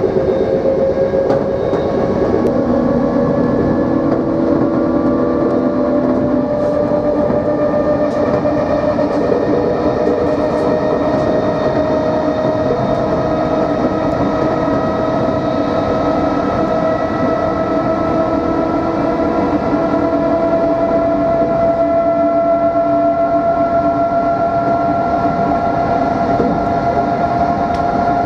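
Traction motors of a Plan V (Mat'64) electric multiple unit whining over the train's steady running noise, the whine rising slowly in pitch as the train picks up speed.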